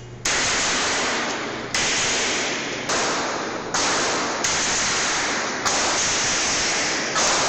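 About six gunshots from an AR-type carbine and then a handgun, irregularly spaced a second or so apart. Each shot is a sharp crack that turns into a second or more of harsh, even hiss, like static.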